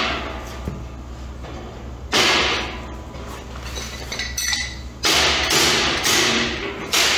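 A hammer striking the 1/8-inch steel plate of a plasma-cut grill as it is knocked together: sharp metallic blows that ring and die away. There is one loud blow about two seconds in, some light clinking of metal, then several blows in quick succession from about five seconds on.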